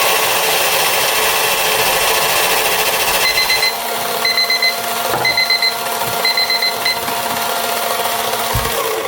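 Let's Resin electric resin sander running through a wet sanding pass with a steady noise. From about three seconds in, a digital kitchen timer beeps in groups of four quick beeps about once a second, signalling that the three-minute countdown is up. The beeping stops about seven seconds in.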